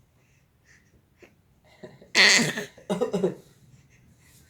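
Two short coughs, the first about two seconds in and the second just under a second later, a quick imitation-style cough exchange with a baby.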